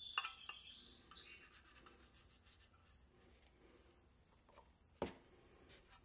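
Faint scraping and rubbing of a hand tool against the flaking paint and rust of a tin toy boat hull, strongest in the first second, then fainter. A single sharp knock comes about five seconds in.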